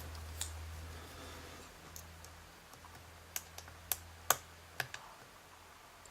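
Small sharp clicks and ticks, about eight scattered over a few seconds and loudest a little past the middle, as a hook pick works the pins of a pin-tumbler challenge lock under light tension. A low hum runs underneath and fades near the end.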